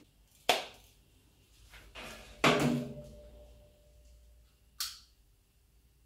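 A few separate knocks in a small room: one about half a second in, a louder one about two and a half seconds in that leaves a faint ringing tone for a moment, and a short sharp click near the end.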